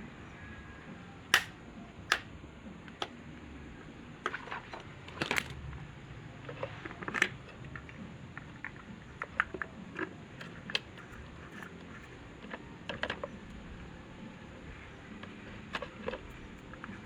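Irregular sharp clicks and light knocks from the parts and tools of an electric fan being handled during repair. The loudest comes about a second in, with a busier cluster a few seconds later. No motor is running.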